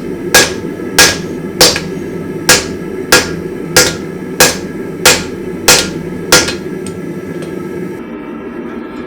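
Hand hammer striking a hot damascus steel billet on an anvil, about ten evenly paced blows roughly every 0.6 s, each with a short metallic ring, knocking flat spots onto the billet so the press die can bite. The hammering stops about six and a half seconds in, leaving a steady background noise.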